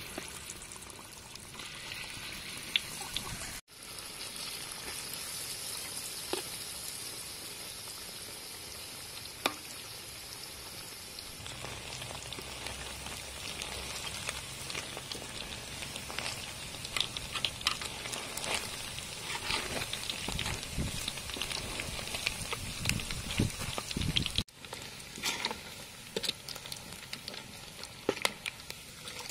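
Battered chicken pieces deep-frying in hot oil in a metal wok: a steady sizzle and bubbling, with short clicks and scrapes of a metal spatula stirring against the wok midway through.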